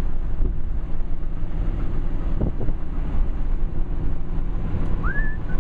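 350 Chevy small-block V8 with Flowmaster mufflers running steadily while driving a 1937 Ford street rod coupe, heard from inside the cabin together with road and wind noise. A short rising whistle sounds near the end.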